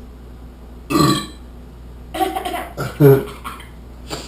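A man's loud belch, about a second in, bringing up gas from a carbonated drink. A few short voice-like sounds follow, and there is a sharp click near the end.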